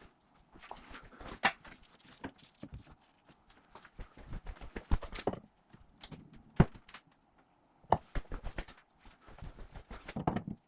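Irregular knocks, clicks and clatter from hands-on work in a shop, coming in clusters separated by short pauses, with a few sharper single knocks.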